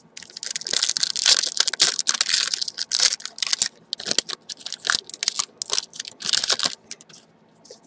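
Foil wrapper of a Bowman's Best baseball-card pack being slit open with a knife and handled, a rapid run of crackly crinkling and tearing rustles that stops shortly before the end.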